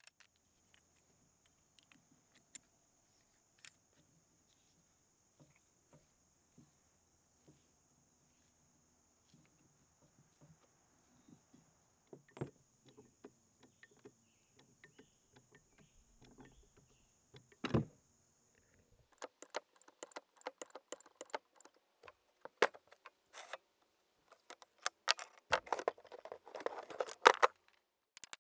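Metal tools clinking and knocking against the steel parts of an old mechanical floor jack during disassembly: a few scattered clicks and knocks at first, then, from about two-thirds of the way through, quick runs of metallic clinks and taps that are loudest near the end, where a hammer strikes a punch.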